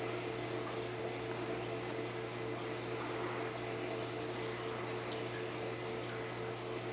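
Steady hum with a constant hiss from saltwater aquarium equipment, its pumps and filtration running.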